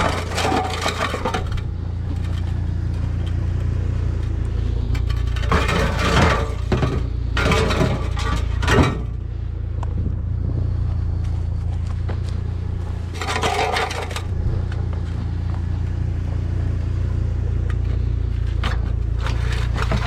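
Scrap metal scraping and clattering in several separate bursts as it is handled and loaded, over a steady low rumble.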